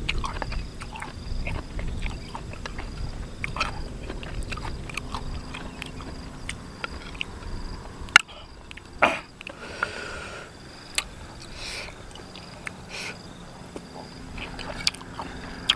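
Close-up eating sounds: a man chewing spoonfuls of peeled rambutan in a sour, spicy syrup, with short clicks throughout. Sharp, louder clicks come about eight and nine seconds in.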